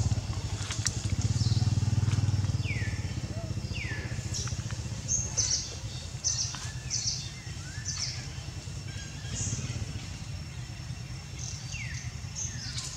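Low steady engine hum, loudest in the first two and a half seconds and then easing off, with birds calling over it: short chirps that slide downward and brief high notes, repeated every second or two.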